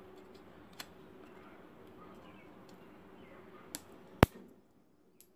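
Knife working on dry jute sticks, making a few sharp clicks and cracks over a steady background noise; the loudest, a single sharp click, comes a little over four seconds in.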